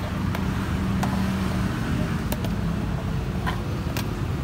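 Steady low rumble of road traffic, with a few sharp clicks of a metal spoon against plastic cups and tubs as red beans are scooped.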